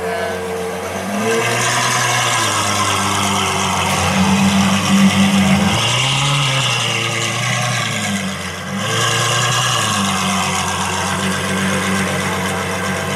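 Novitec Ferrari F12 N-Largo S's V12 running at a low, steady idle while the car creeps at walking pace. The engine note rises and falls twice, about six and nine seconds in, as the throttle is lightly touched.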